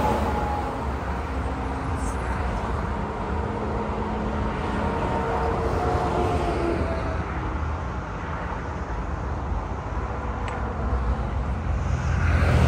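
Highway traffic going by close at hand. A flatbed semi-truck passes and recedes, its tyre and engine noise fading with a slowly falling whine. The traffic noise dips, then swells again near the end as the next vehicles approach.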